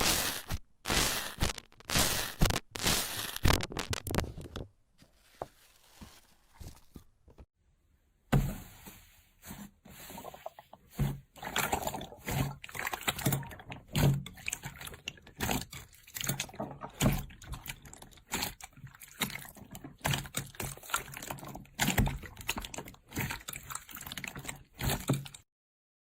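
Slime being squished and handled by hand, giving a run of sticky, wet clicks and pops. After a brief quiet stretch, a second run of pops follows, and the sound stops abruptly near the end.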